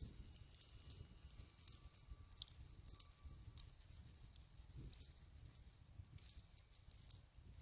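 Near silence: a faint low wind rumble on the microphone, with scattered faint ticks and crackles.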